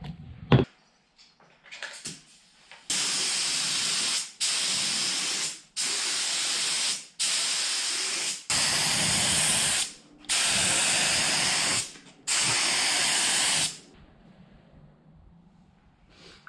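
Compressed-air gravity-feed spray gun spraying zinc-rich cold galvanising paint in seven hissing bursts of about a second or so each, with short pauses between trigger pulls. A short click comes first.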